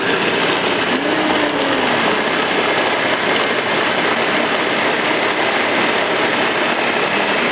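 Countertop blender motor running at full speed, a loud steady whir as it blends shredded chicken with cream cheese, grated cheese and sauces into a thick dip.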